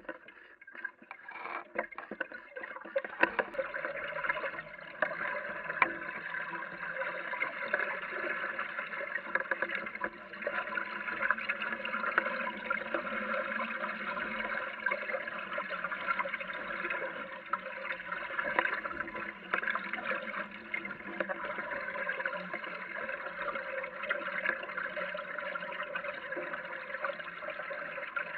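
Water gurgling and splashing along the hull of a small sailboat under way, a steady wash that builds about three seconds in, with a few light knocks in the first seconds.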